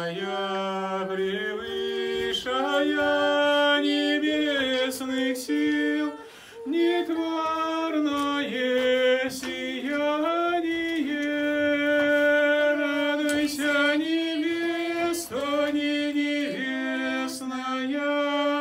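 Unaccompanied Orthodox chant in Church Slavonic: a man's and women's voices singing a hymn to the Mother of God slowly, in long held notes. There is a brief break for breath about six seconds in.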